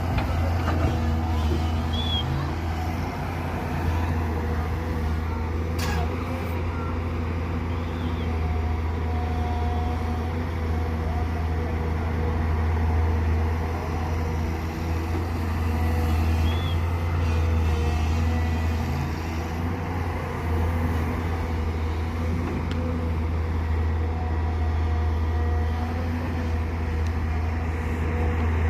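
Diesel engine of a Volvo 170 excavator running steadily with a deep hum, swelling and easing slightly as it works loading a dump truck. There is one sharp click about six seconds in and a few short high chirps.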